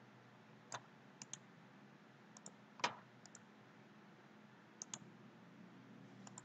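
Computer mouse buttons clicking, faint, in quick press-and-release pairs a few times over, with one louder click about three seconds in, over a low steady hum.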